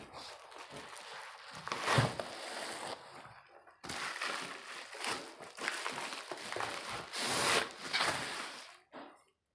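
Hands handling a badminton racket in its fabric cover, making irregular rustling and crinkling, with a thump about two seconds in and a longer, louder rustle near the end.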